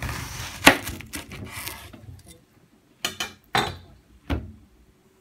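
A kitchen knife cuts through an onion onto a plastic cutting board, making a stretch of crunchy scraping with one sharp knock of the blade about a second in. Then come three short, crisp snaps as the onion's layers are pulled apart by hand.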